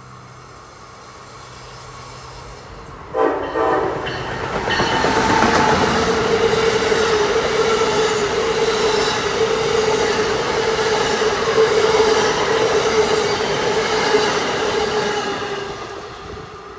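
Amtrak Northeast Regional train sounding two short toots of its horn about three seconds in, then passing close at speed: loud rail and wheel noise from its passenger cars, with a steady tone underneath, fading away near the end.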